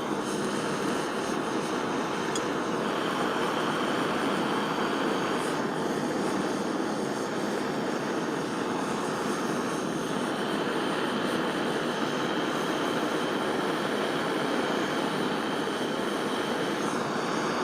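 Large gas soldering torch burning with a steady roaring flame while it heats a silver setting and backplate so the solder can be run along the seam.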